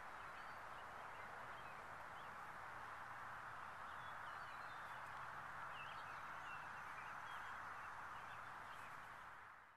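Faint outdoor ambience: scattered short bird chirps over a steady hiss of background noise and a faint low hum, fading out near the end.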